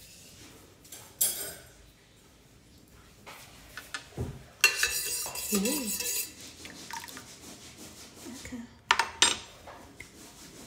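Kitchenware clattering: a ceramic mug, a metal pot and a spoon knocked and set down on a counter. A sharp clink about a second in, a longer clattering stretch about halfway through, and two quick clinks near the end.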